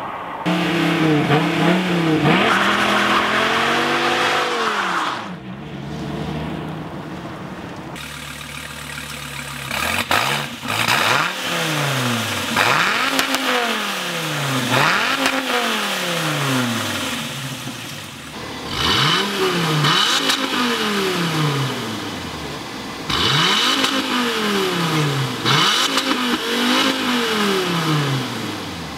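2013 SRT Viper's 8.4-litre V10 running hard with rising and falling pitch, then settling to a steady idle for a few seconds. From about ten seconds in it is blipped again and again, each rev climbing and dropping back, about every two seconds.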